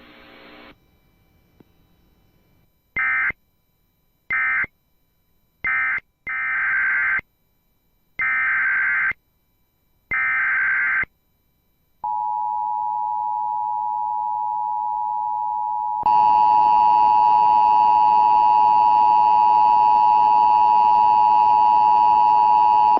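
Emergency Alert System tones. Three short buzzing SAME data bursts end one alert, and three longer bursts carry the next alert's header. Then a steady alert tone sounds, becoming louder and harsher about four seconds after it starts.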